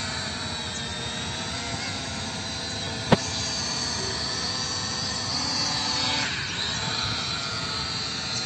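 E88 toy quadcopter drone's propellers whining steadily as it hovers, the pitch shifting about six seconds in as it manoeuvres. A single sharp click about three seconds in.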